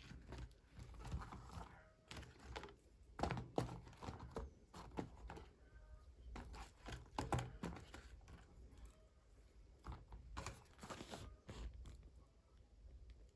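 Hands handling doll packaging: irregular soft taps, clicks and crinkles of plastic and cardboard.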